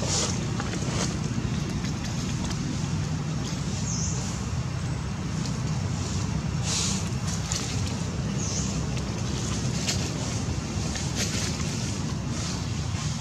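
Steady low rumble of wind buffeting the microphone, with a few short, faint high-pitched sounds scattered through it.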